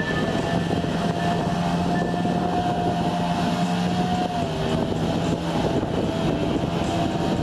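Velorex 16/350 three-wheeler's Jawa 350 cc two-stroke twin held at high revs while the single rear wheel spins in soft ploughed soil. The engine note dips slightly about halfway through, then holds steady again.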